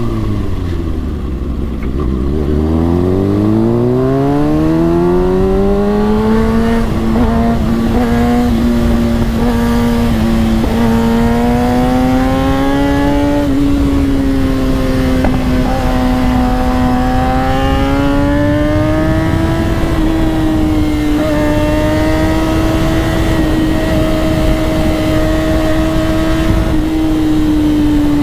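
Kawasaki ZX-6R 636's inline-four engine on the move: its note drops as it slows in the first two seconds, climbs as it accelerates, then settles into a steady cruise with small rises and falls in pitch. A steady rush of noise runs underneath.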